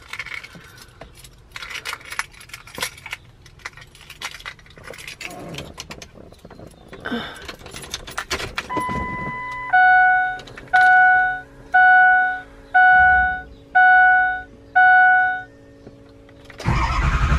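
Keys jangling, then a truck's dashboard warning chime dinging six times at an even pace. Near the end the 2003 Ford 6.0-litre Power Stroke diesel engine cranks and starts.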